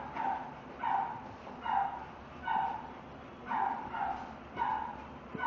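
Dog whimpering in short yelping cries, repeated about once a second.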